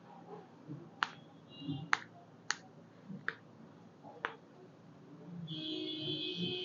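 Five sharp cracks, spaced roughly a second apart: joints popping during a chiropractic adjustment of the leg and ankle. Near the end a sustained pitched sound with several layered tones begins.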